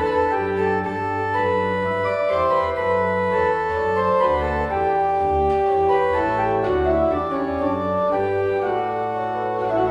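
Organ playing sustained chords over a moving bass line.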